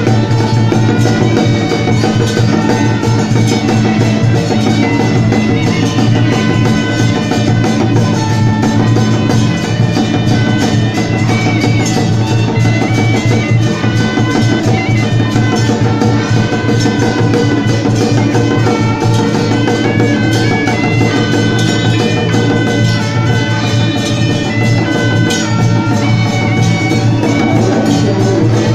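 Loud, continuous traditional Taiwanese temple-procession music: a high, reedy wind-instrument melody stepping between notes over steady drums and percussion.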